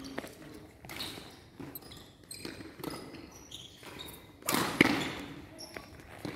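Scattered thuds and knocks echoing in a large hall, with a louder, longer burst of noise about four and a half seconds in.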